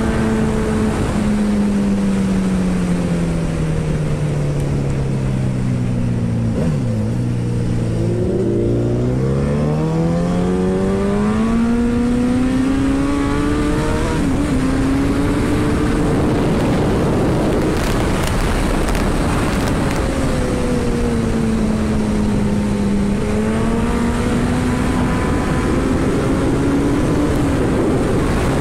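Suzuki Hayabusa's inline-four engine, heard from the rider's seat over wind rush. The revs fall steadily as the bike slows, dip briefly about seven seconds in, then climb as it accelerates hard. The revs ease off again about twenty seconds in and pick up once more near the end.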